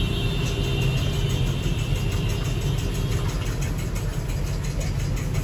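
A steady low machine hum, with a faint high whine above it that fades out about three seconds in.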